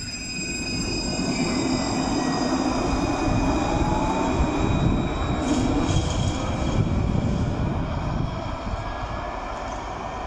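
Alstom Citadis tram pulling away from a stop: electric traction motors whining and steel wheels rumbling on the rails. It grows louder over the first couple of seconds and fades as it draws away near the end.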